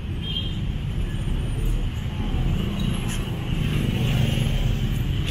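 Low engine rumble of motor vehicles in street traffic, swelling about four seconds in.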